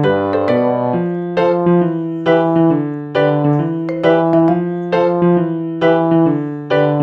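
Background music: a piano melody played at an even pace, about two to three notes a second, over a sustained bass.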